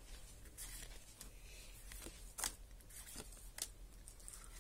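Japanese Pokémon trading cards being slid one by one off a handheld stack: soft, scattered card clicks and rustles, with one sharper snap about two and a half seconds in.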